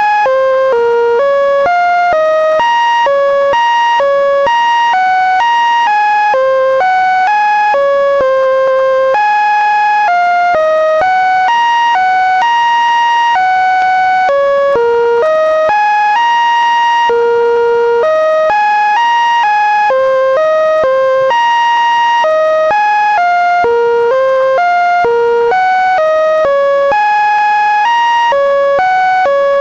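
Synthesized electronic tones generated from Linux kernel data by a command-line script: an unbroken run of single buzzy notes, each with a stack of overtones, jumping up and down in pitch two to three times a second, with now and then a note held for about a second.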